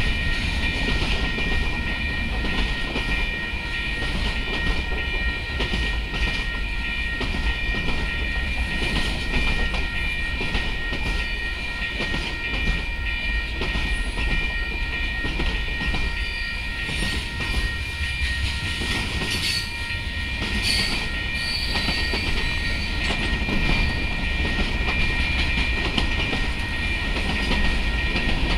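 Freight train cars, boxcars and covered hoppers, rolling past close by at a grade crossing with a continuous steady rumble of wheels on rail.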